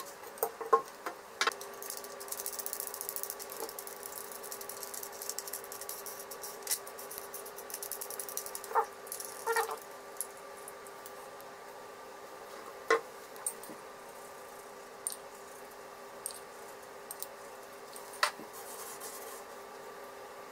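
Hands handling and adjusting a homemade strip cutter made of plastic disc blades and nuts on a threaded metal rod. There is light rattling in the first half and scattered clicks and taps, over a steady faint hum.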